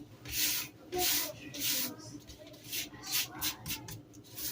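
Rose petals being pounded onto paper: a string of soft scuffing strikes, three slow ones at first, then quicker, shorter ones near the end.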